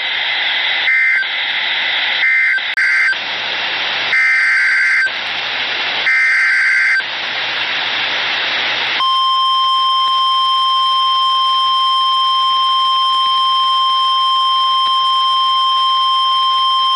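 NOAA Weather Radio emergency alert signalling. About five short, buzzy two-tone SAME digital data bursts come first, with radio static between them. About nine seconds in, the steady 1050 Hz warning alarm tone starts and holds, announcing that a warning message follows.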